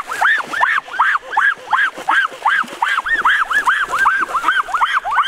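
A rapid, unbroken series of short, high calls from an animal, each rising and falling in pitch, about five a second.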